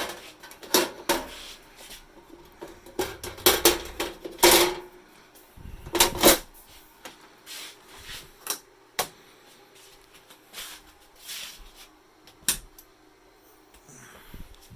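Irregular sharp clicks and knocks of small plastic and metal parts being handled inside an open rack-server chassis, with some rubbing between them; the loudest clicks come right at the start and again about four and six seconds in.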